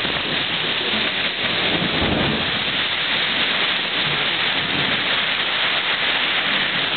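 Torrential rain from a severe thunderstorm pouring down in a steady roar, with a low rumble swelling about two seconds in.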